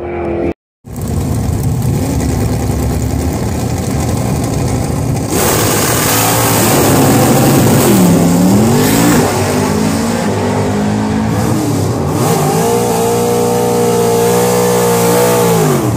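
Drag-racing car engine running at high revs. Its pitch dips and climbs back about eight seconds in, then holds steady and high for about three seconds before falling off near the end.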